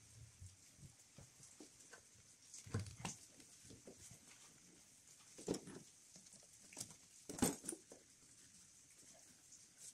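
Faint rustling and scratching from gloved hands working a silicone intake hose and its clamp, with a few light knocks and clicks. The loudest knock comes about seven and a half seconds in, with others near three and five and a half seconds.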